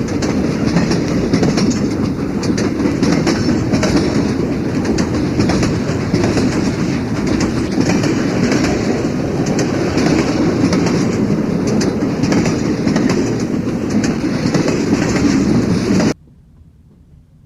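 Train wheels running steadily over the rails, a loud dense rumble with a constant run of clicks from the wheels striking the rail joints. It cuts off suddenly near the end, leaving only a faint background.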